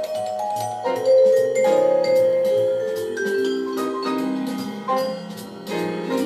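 Instrumental music: a melody of struck, ringing pitched notes over a lower accompaniment.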